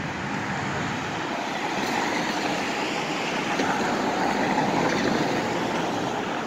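Street traffic noise, swelling as a vehicle passes about halfway through and easing off again.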